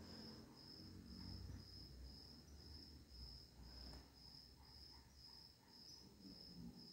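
Near silence, with a faint high-pitched chirp repeating evenly about twice a second.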